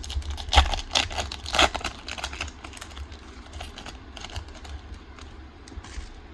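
Foil trading-card booster pack crinkling and cards being handled: sharp crackly clicks and scrapes, loudest about half a second and a second and a half in, then lighter scattered clicks, over a steady low hum.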